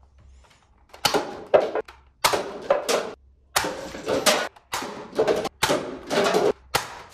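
Toy foam-dart blaster firing a rapid series of about ten shots, roughly two a second, starting about a second in, as the darts knock over a stack of paper cups.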